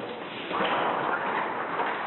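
A flat fire hose being flung out and dragged along a hard stone floor, with hurried footsteps. A steady noise runs under it, a little louder from about half a second in.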